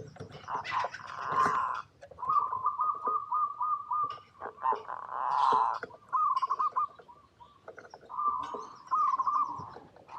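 Zebra dove cooing: three runs of quick staccato coos at one pitch, with two short, noisier bursts between the runs.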